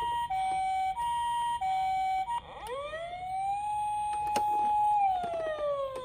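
Toy ambulance's electronic siren: a two-tone hi-lo call, high and low notes alternating about every two-thirds of a second, then about two and a half seconds in it switches to a wail that rises, holds and slowly falls. There are a couple of faint clicks along the way.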